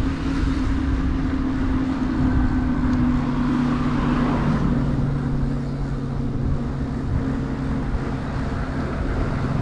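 Huck Cycles Stinger 3000 electric moped riding at about 12 mph: a steady low hum from the drive and tyres that dips slightly in pitch around the middle as it slows, with wind rumbling on the microphone.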